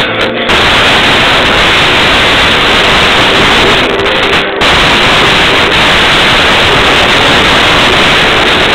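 Loud, steady rushing noise that covers everything else, briefly dipping just after the start and again about four and a half seconds in.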